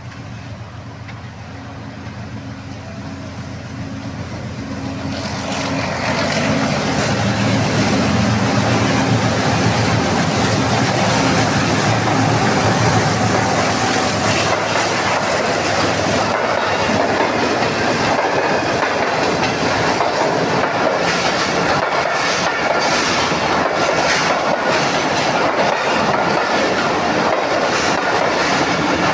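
A diesel locomotive approaches, its engine's low drone growing louder over the first few seconds, then passes close by. A string of passenger coaches follows, their wheels clattering steadily over the rail joints.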